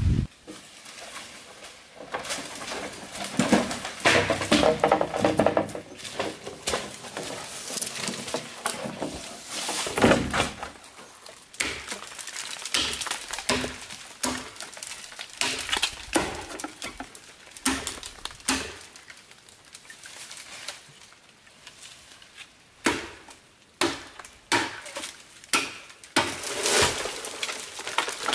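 A large knife chopping into a standing green bamboo culm: sharp, irregular strikes, several a few seconds apart and quicker in the second half, as a notch is cut into the stem. In the first half, rustling and scraping of leaves and brush as bamboo is handled.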